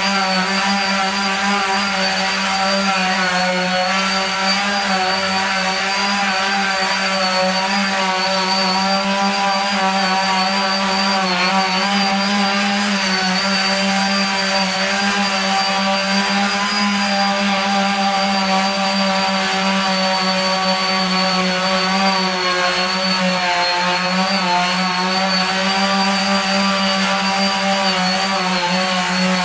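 Handheld electric detail sander running steadily, sanding black paint off a metal front door. Its motor hum dips slightly in pitch a couple of times.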